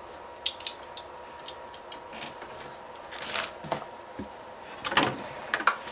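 Hands handling small plastic Bakugan toys and their packaging: scattered light clicks and rustles, louder about three seconds in and again about five seconds in.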